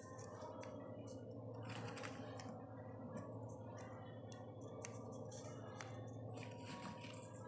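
Faint rustling and light irregular clicks of small folded-paper origami pieces being handled and slotted together by hand, over a steady low hum.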